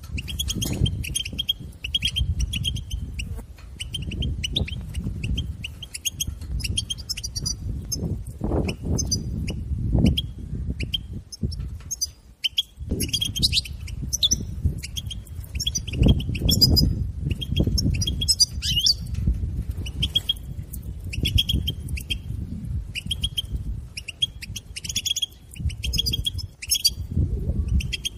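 European goldfinch giving a rapid twittering chatter, runs of short quick notes with brief pauses and a longer break about twelve seconds in. A low rumble runs underneath.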